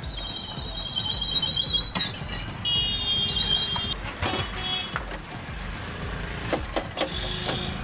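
High electronic beeping tones sound for about two seconds, then again for about a second, over a low steady roar. A few short metal clanks follow as a frying pan is lifted and tipped on the gas stove.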